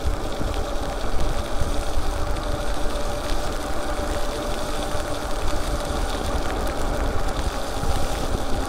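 Electric bike ridden at about 22 mph on a wet street: wind rumbling on the microphone and tyre noise on the wet pavement, with a faint steady motor hum.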